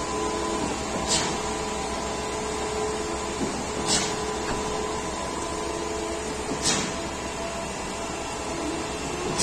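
Truck-mounted concrete boom pump running steadily while pumping concrete, with a short sharp burst about every three seconds, four times in all, as the pump's cylinders change stroke.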